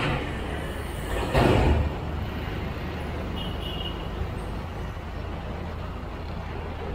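Heavy road traffic with container trucks and motorcycles passing, under a steady low engine rumble. A short, loud rush of noise about a second and a half in is the loudest moment.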